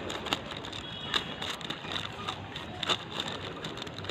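A parcel of packaging being handled and opened by hand: irregular crackling, rustling and sharp little clicks.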